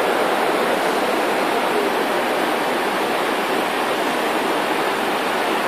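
Steady rushing of running water, like a mountain stream, an even hiss with no beat or pitch.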